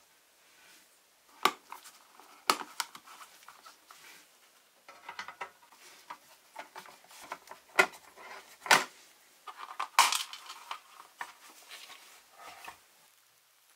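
Small metal parts clinking and clicking as they are handled, with several sharp knocks and light rattling in between.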